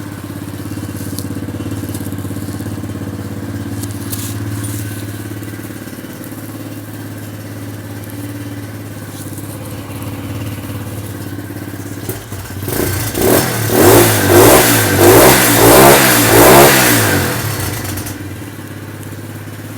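125cc dirt bike's single-cylinder engine idling steadily, then revved in a quick series of throttle blips about twelve seconds in before settling back to idle near the end. It is running again on a newly fitted carburetor after sitting unused for years.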